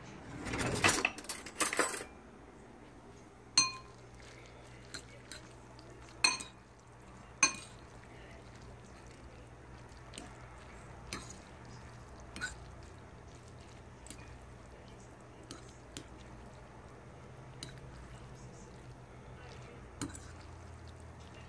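Metal utensil stirring and lifting noodles in a ceramic bowl, clinking sharply against the bowl three times, with fainter taps between. A short rustling noise comes about a second in.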